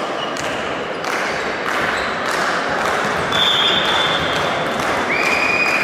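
Crowd hubbub echoing in a large sports hall, with scattered knocks. A high whistle sounds a little past the middle, and a longer, slightly lower whistle starts near the end.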